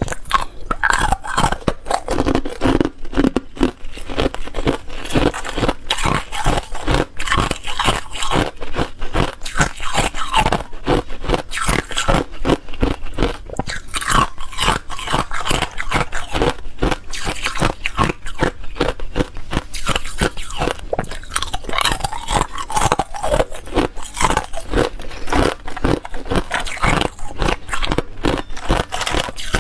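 Clear ice being bitten and chewed, close to the microphone: a dense, continuous run of crisp crunches and cracks as pieces break between the teeth.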